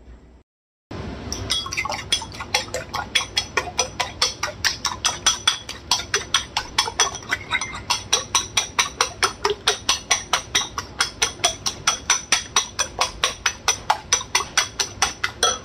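Eggs being beaten in a ceramic bowl: a utensil clinks against the bowl in a steady rhythm of about four strokes a second, starting about a second in.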